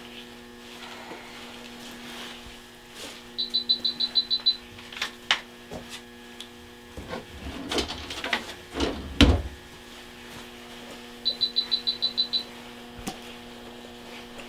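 Rapid high electronic beeps, about eight a second in runs of roughly a second, heard twice: the activation tone of an electrocautery unit being fired. Under them is a steady low equipment hum, with scattered clicks of surgical instruments and one dull thump about nine seconds in.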